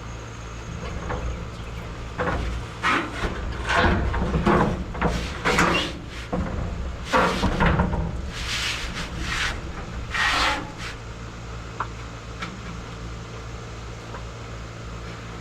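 Irregular scraping and rubbing noises, a dozen or so short bursts in the first two-thirds, over a steady low hum.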